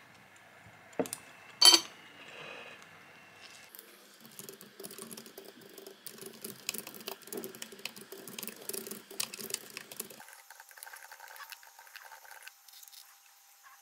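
Two sharp knocks on a wooden tabletop about a second in, then rapid typing on a low-profile keyboard: many quick, light keystroke clicks for several seconds, thinning out near the end.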